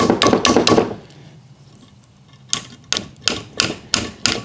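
Steel chute-blocker bracket parts clattering together as they are handled and fitted, then a run of light, even taps of a tool on the metal bracket, about three a second, starting about two and a half seconds in.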